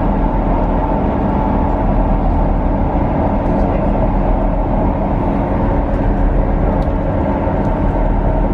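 Passenger train running at speed, heard from inside the carriage: a steady rumble of wheels and track with a constant hum over it.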